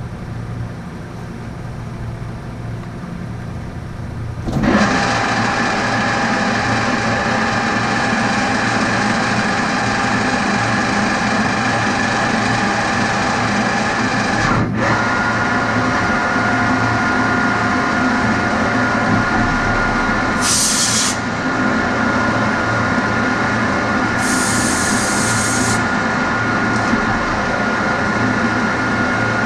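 Metal lathe running with a steady hum, then cutting steel tube from about five seconds in: a loud steady scraping noise with a high whine. The cut breaks off briefly about 15 s in and resumes with a slightly lower whine, and two short hisses come through around 21 and 25 s.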